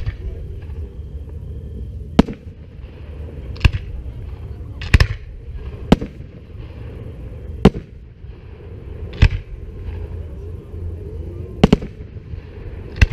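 Aerial firework shells bursting one at a time, about eight sharp bangs spaced one to two and a half seconds apart, one of them a quick double bang, over a steady low background rumble.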